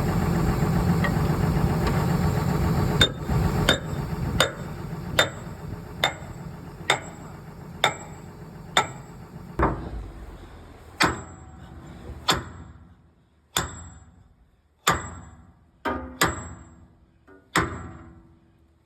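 A hammer strikes steel about fifteen times with a short metallic ring after each blow. The blows start quickly and slow to roughly one a second. An engine runs at first and fades away over the first half.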